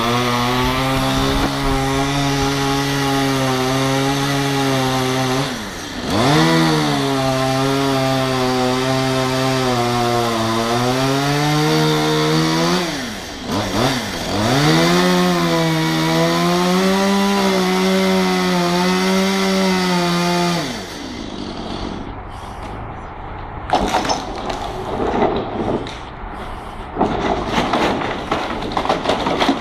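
Two-stroke chainsaw running at cutting speed through a wooden barn post, its revs dropping and picking up again twice before it stops about 20 seconds in. Quieter, uneven rough noise follows until the end.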